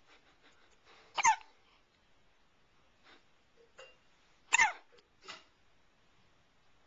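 A one-month-old baby hiccuping twice, about three and a half seconds apart. Each hiccup is a short, sharp catch of the voice that drops in pitch.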